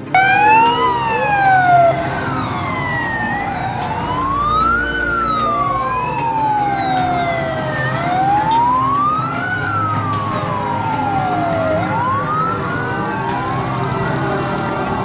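Several emergency-vehicle sirens wailing at once, overlapping, each rising quickly and falling slowly in pitch every few seconds, from a passing convoy of fire-response trucks, with vehicle engine and traffic noise underneath.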